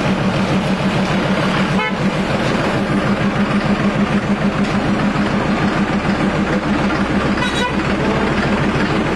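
Narrow-gauge diesel locomotive's engine running close by with a steady, fast throb as it hauls its coaches past.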